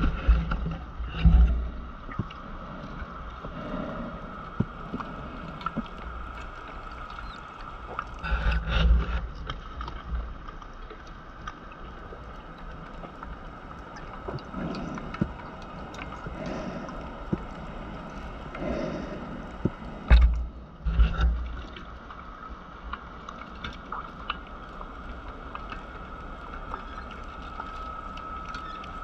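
Scuba diver's breathing heard underwater: three loud gurgling rushes of exhaled bubbles about ten seconds apart, softer breaths between them, over a faint steady high hum.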